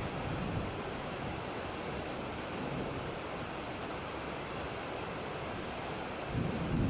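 Steady hiss of heavy rain with a low thunder rumble swelling up near the end.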